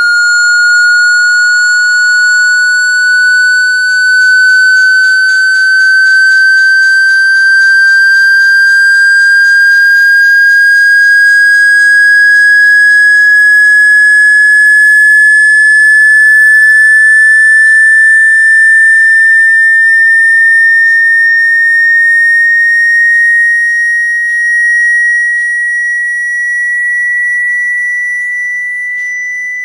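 Loud electronic sine tone gliding slowly upward in pitch: a frequency-sweep tone made to vibrate a phone or earphone speaker and drive out water that has got into it. It eases off slightly near the end.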